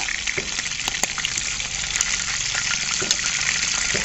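Chicken leg pieces sizzling steadily in hot oil in a non-stick frying pan, with a few clicks of a metal spatula against the pan as they are turned.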